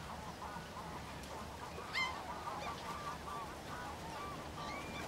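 A flock of birds calling, many short overlapping calls, with one louder call about two seconds in.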